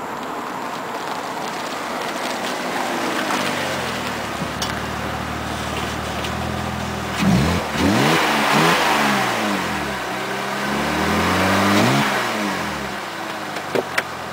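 BMW 525i straight-six through a Magnaflow exhaust with the resonator deleted, idling steadily, then revved: quick blips about seven seconds in and a slower climb and fall a few seconds later. Two sharp clicks near the end.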